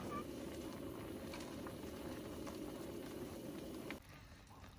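Liquid bubbling at a boil in a cooking pot, a steady dense bubbling that stops abruptly about four seconds in.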